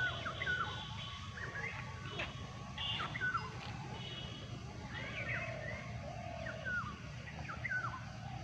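Birds chirping: many short calls, each falling quickly in pitch, over a steady low hum.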